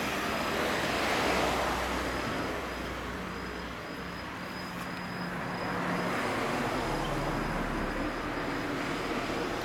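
Vehicle rumble like passing road traffic, swelling about a second in and again around six seconds.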